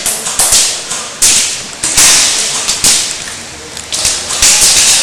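Handling noise on a gun-mounted camera: a run of loud swishing rushes with sharp clicks and knocks between them.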